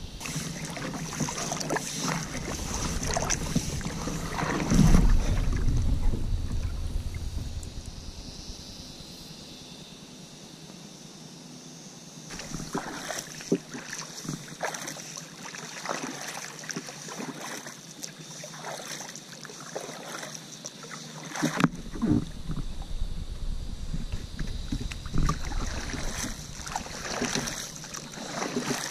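Hands paddling calm water from a stand-up paddleboard, with a run of short splashing strokes as the arms pull the board along. Near the start a low rumble and knocks on the microphone drown out the water, and there is one louder knock in the second half.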